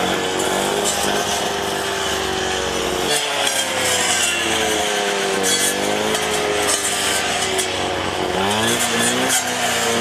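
Strimmer engine running while cutting undergrowth, its revs rising and falling several times as it works through the vegetation.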